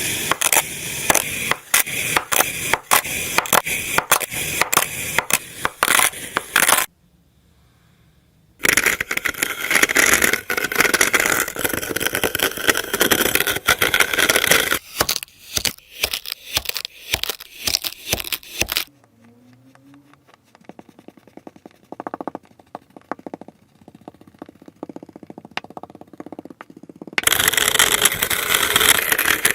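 Kinetic sand being cut and crushed: dense crunching and crackling made of many rapid small cracks. It breaks off into a short near-silent gap about seven seconds in, then again into a longer quiet spell of faint scattered clicks from about nineteen seconds until close to the end, where the crunching resumes.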